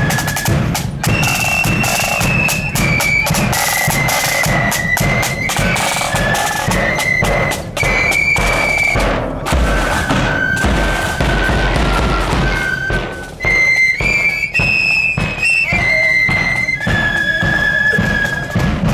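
Marching flute band playing a tune: flutes in unison carrying the melody over steady drum strokes.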